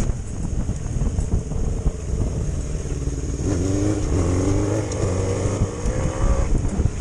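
Four-cylinder Suzuki GSX 400 engine of a home-built dirt bike running off-road, revving up and down in several rising and falling sweeps through the middle over a steady low rumble.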